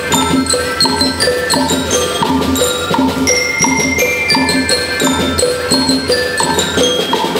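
School rhythm band playing a march, with bell lyres carrying a ringing metallic melody over drums beating about twice a second.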